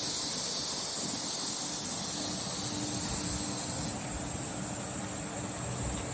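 Engine running steadily under a strong hiss, with a faint low hum that comes and goes.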